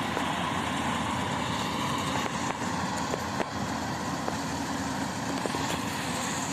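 Combine harvester's engine running steadily.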